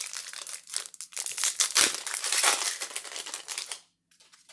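Crinkling and rustling of a Magic: The Gathering booster pack and its cards being handled, stopping abruptly near the end, followed by a few faint ticks.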